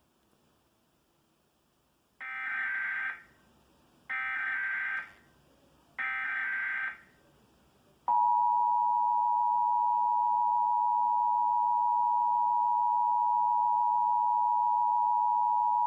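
Emergency Alert System monthly test: about two seconds in, three one-second bursts of SAME digital header data about two seconds apart, then the EAS two-tone attention signal (853 and 960 Hz sounded together), held steady for about eight seconds.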